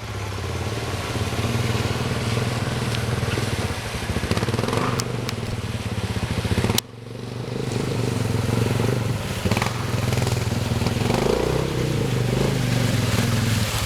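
A vehicle engine running steadily, with a short sudden break about halfway through before the same engine sound resumes.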